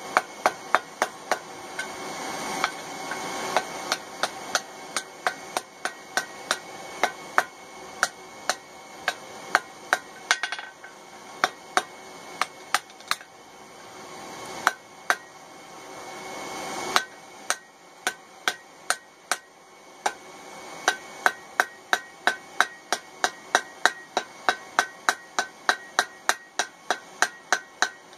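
Hand hammer striking red-hot mild-steel tongs on an anvil, peening the hot rivet that joins the two tong halves. Sharp, ringing blows come at about two a second, with a short pause a little past halfway. A steady hiss underneath stops about two-thirds of the way through.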